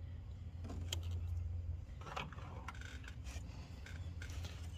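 Faint small clicks and scrapes of a spark plug and a metal swivel spark plug socket being handled, over a steady low hum.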